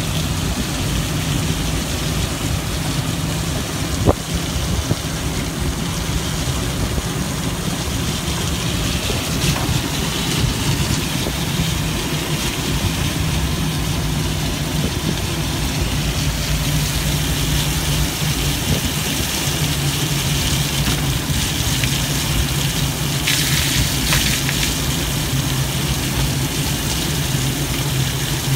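Steady rain and wet-road hiss with a low steady hum, heard from inside the shell of an Organic Transit ELF velomobile. There is one sharp click about four seconds in, and a brief louder hiss of spray about two-thirds of the way through.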